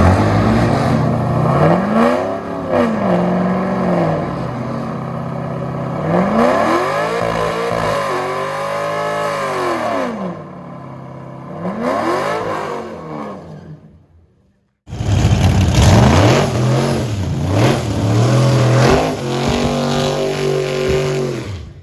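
High-performance drag-racing engine revved repeatedly, its pitch climbing and falling back several times. A cut about two-thirds of the way through brings a brief silence, then engine revving again.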